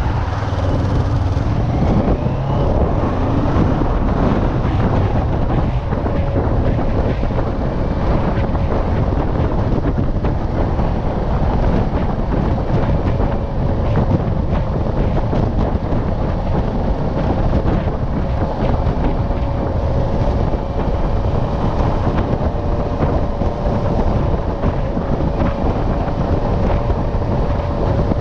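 Kawasaki motorcycle engine pulling away, rising in pitch over the first few seconds, then running at a steady note at cruising speed. Heavy wind noise on the microphone runs through it.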